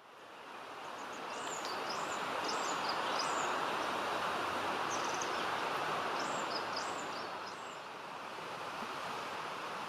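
A small songbird singing short, high, quick phrases three times, over a steady rushing background noise.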